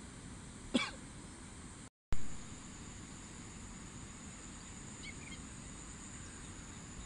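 Quiet outdoor ambience: a steady hiss with a thin, faint high whine. There is a sharp click a little under a second in, and the sound cuts out completely for a moment at about two seconds before coming back with a loud pop.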